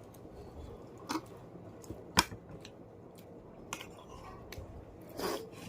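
Quiet eating sounds: chewing with a few small clicks of cutlery or plate, one sharper click about two seconds in.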